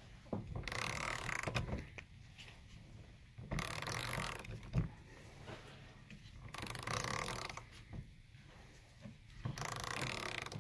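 Heavy, rhythmic breathing, about one breath every three seconds, from a person straining to turn a screw-type bushing press, with a few faint metal clicks from the press and wrench.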